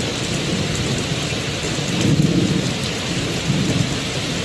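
Steady rain with low rolling thunder, the rumble swelling about two seconds in.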